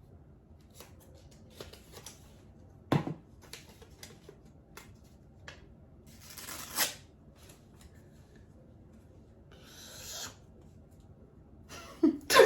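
A sheet of paper being handled: scattered crinkles and crackles, with a sharper knock about three seconds in and two short, louder rustles or tears later on.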